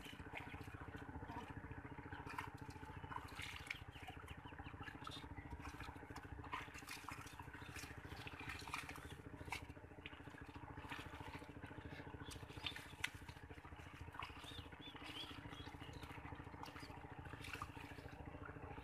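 Hands squelching and splashing in shallow muddy water as the mud is groped for fish: many small irregular splashes and clicks, over a faint steady mechanical hum.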